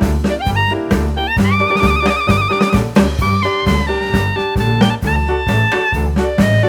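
Jazz background music: a horn melody, with a long held note with vibrato from about one and a half to nearly three seconds in, over a steady bass line and drum kit.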